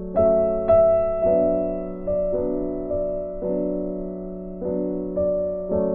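Background music: a slow, gentle piano tune, chords struck one after another and left to fade.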